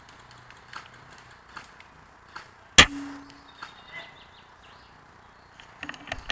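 Novritsch SSG24 spring bolt-action airsoft sniper rifle firing once, about three seconds in: a single sharp snap with a brief low ringing after it. Several lighter mechanical clicks follow near the end.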